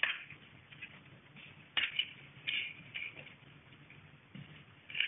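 Playing cards being shuffled and handled: a few short, sharp rustles and snaps, one at the start, a cluster near two seconds in, and another at the end, over a faint steady hum.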